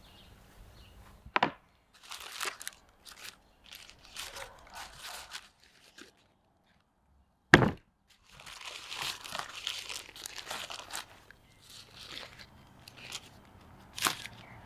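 White baking paper crinkling and rustling as a wrapped roll of cooked lamb fat tail is unwrapped and handled. There are sharp thuds of it being set down, about a second and a half in, a louder one about halfway through, and another near the end.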